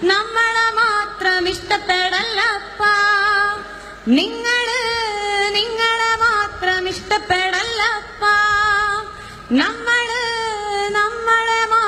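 A woman singing unaccompanied into a microphone, holding long notes with vibrato and quick ornaments. Twice, about four and nine and a half seconds in, a new phrase opens with a rising slide up to the note.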